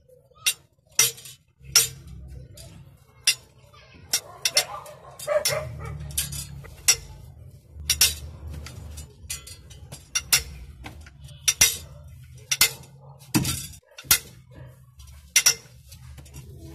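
Small steel engine parts clinking against each other and against a diesel cylinder head as they are handled and set back in place: a dozen or more sharp metallic clinks at irregular intervals, over a steady low hum.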